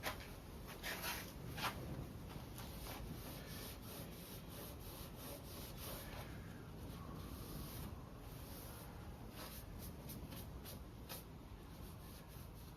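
Faint rubbing and a few light clicks of hands working on an engine's oil pan and rubber gasket, over a low steady background hum.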